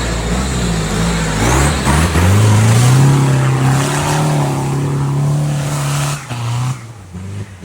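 Suzuki SJ off-road race car's engine revving hard under load: the revs climb about two seconds in, hold high and steady for a few seconds, then drop off suddenly near the end.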